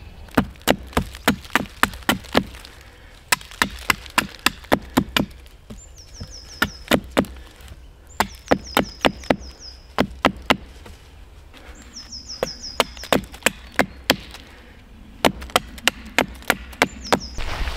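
Small hatchet chopping the end of a stick against a fallen log to taper and round it. Quick runs of sharp wooden chops come several a second, broken by short pauses.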